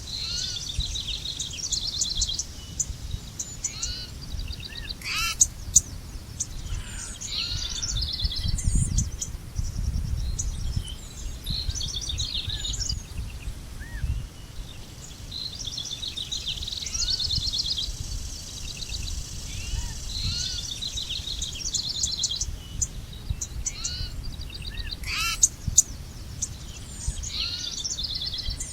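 Several birds singing and chirping together, with quick trills and twitters, over a low steady rumble that swells briefly in the middle. A few sharp clicks or chips stand out about five seconds in and again near the end.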